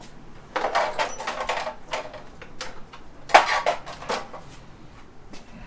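Hard motorcycle fairing parts and fasteners clattering and clicking as they are handled. The sound comes in two bursts: one starting about half a second in, and a louder one just past three seconds in.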